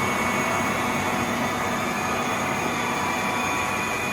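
Cincinnati Vercipower horizontal milling machine running with its spindle at 1080 RPM: a steady machine hum with several steady whining tones from the drive.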